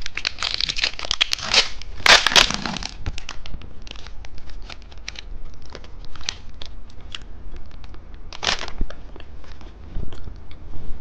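Plastic snack wrapper crinkling and tearing as a cheese stick is opened, densest in the first few seconds, with another burst of rustling later and scattered small clicks in between.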